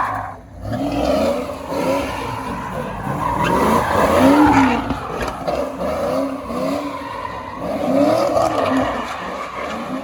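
A 2002 Pontiac Firebird Trans Am WS6's LS1 V8 revving hard while its tyres squeal and skid through donuts, the pitch rising and falling over and over.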